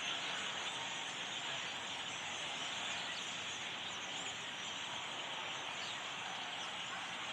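A large flock of black birds calling all at once, a steady dense chatter of many overlapping high chirps and squeaks.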